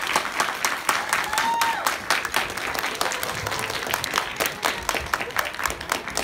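Audience applauding with many quick, irregular claps, some close by, and a few voices calling out among them.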